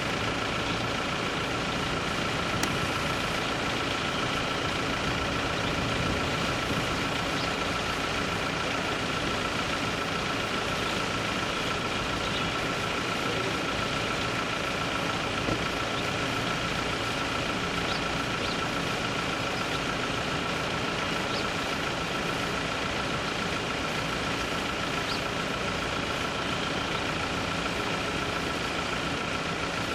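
Helicopter engine running steadily, a constant high whine over a broad rumble that does not change.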